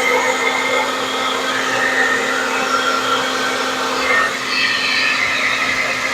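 Handheld hair dryer running steadily, a constant motor hum under a rush of air whose tone shifts as it blows across wet acrylic pour paint on a ceramic coaster.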